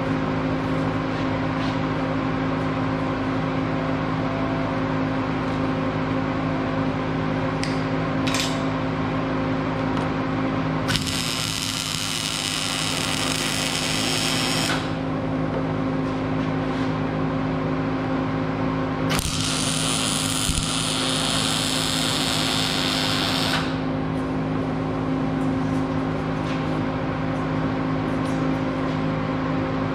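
Millermatic 200 MIG welder's arc crackling as it lays weld on a steel bracket on a pipe, in two runs of about four seconds each, starting about eleven seconds in and again about nineteen seconds in. A steady hum with several fixed tones runs underneath.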